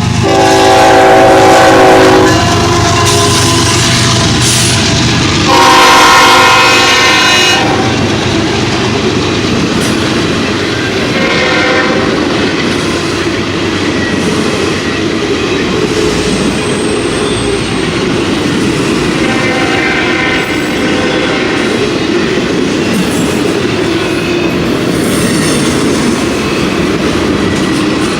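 CSX freight train of auto-rack cars passing behind an EMD SD70 diesel locomotive: the air horn sounds loud, long blasts over the first eight seconds or so, strongest twice, then the cars roll by with a steady rumble and clatter of wheels on rail joints.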